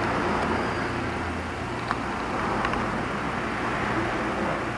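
Steady low background rumble of vehicle noise, with a couple of faint clicks.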